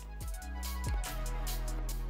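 Background music with a beat of deep drum strokes over held bass notes.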